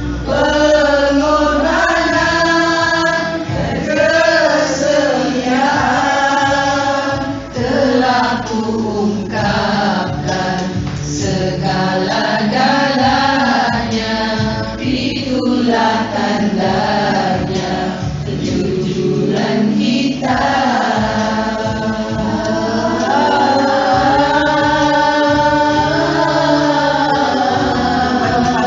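Background music: a song with sung vocal melody lines over accompaniment.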